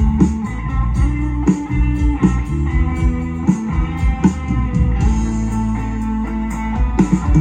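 Live band playing an instrumental piece, with sustained pitched notes over a steady low end and regular sharp strikes, and a quicker run of strikes near the end.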